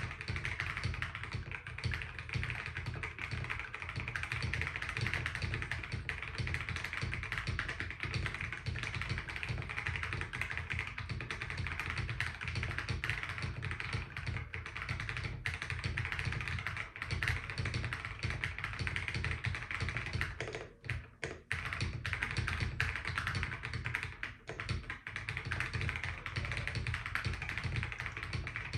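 Continuous fast typing on a CIY GAS67 65% mechanical keyboard with KTT Kang White V3 linear switches, a polycarbonate plate, PBT keycaps, and tape and foam dampening mods; the keystrokes run together in a dense clatter. There is a brief pause about two-thirds of the way through.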